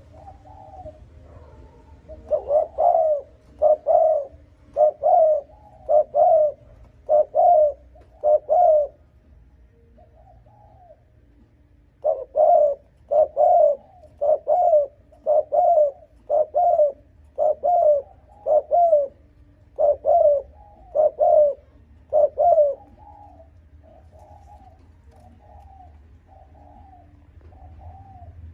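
Spotted dove (cu gáy) giving its rapid, insistent coo, the 'thúc gù' call. There are two quick runs of about eight loud coos each, with softer coos between and after them.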